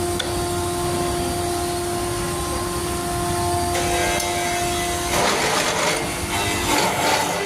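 Woodworking power machine for cutting tenons running with a steady whine, then biting into wood about five seconds in, turning into a rough cutting noise.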